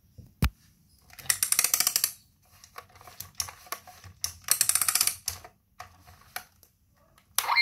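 Plastic jointed arm of a toy robot being turned by hand, its joint clicking in rapid ratchet-like runs: a single sharp click near the start, two longer runs of fast clicks about a second and four and a half seconds in, scattered clicks between, and a louder burst near the end.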